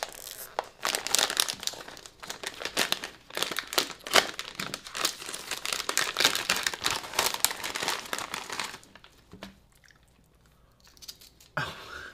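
Crinkly snack bag being pulled open and handled: dense, rapid crinkling and tearing for about nine seconds, then it goes much quieter.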